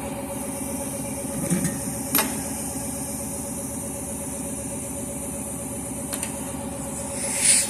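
An engine or motor running steadily at a constant speed, giving an even hum. A couple of light clicks come through it, and a short swell of hiss comes near the end.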